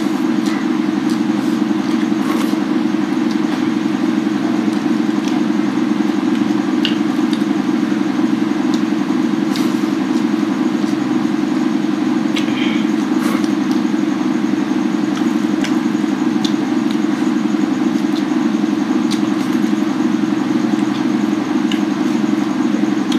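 A loud, steady mechanical hum with a fine even flutter, with a few faint clicks of hands eating from steel plates.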